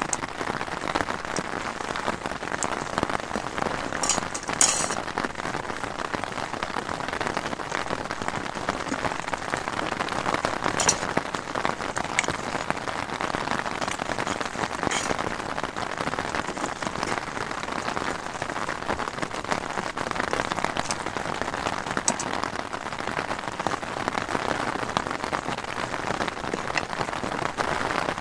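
Steady heavy rain drumming on a tent's fabric, heard from inside the tent. A few light clicks of a fork against the bowl stand out now and then as noodles are mixed.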